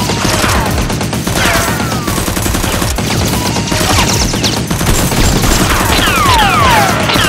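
Rapid, continuous gunfire sound effects dubbed over the action, with falling whistle-like tones that repeat about three times a second near the end, over background music.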